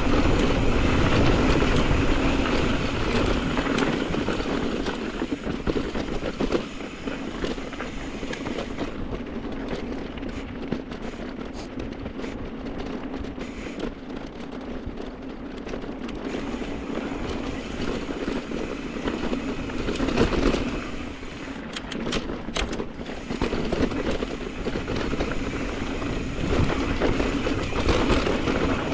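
Mountain bike riding downhill on dirt singletrack: wind rushing over the camera microphone and knobby tyres rolling over dirt, with frequent short rattles and clicks from the bike over bumps. Louder and busier at the start and again near the end, quieter through the middle.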